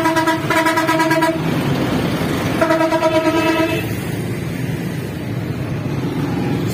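A vehicle horn honking in blasts of about a second, three in the first four seconds, over the steady rumble of engines in a traffic jam of trucks.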